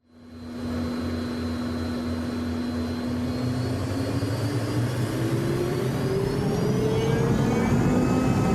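Learjet engines heard from inside the cabin at takeoff, a steady whine over a low rumble that fades in at the start. About three seconds in, the engines spool up and the whine rises steadily in pitch.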